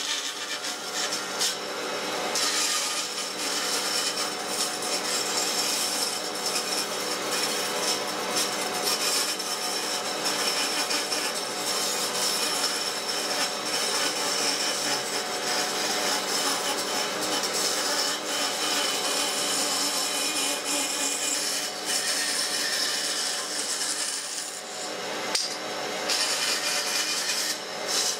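Bandsaw running and cutting curves in a thick softwood board: a steady machine hum under the continuous hiss of the blade through the wood, easing briefly near the end before cutting resumes.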